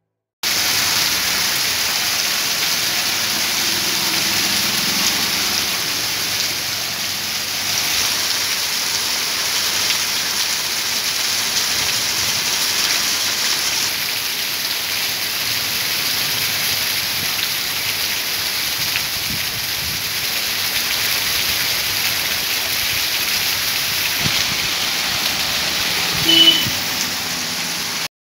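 Heavy monsoon rain pouring down: a steady, even hiss throughout, with one short, louder tone about two seconds before the end.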